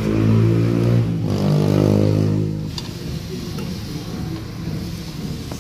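Scooter engine idling, then shut off about two and a half seconds in, followed by faint clinks of hand tools.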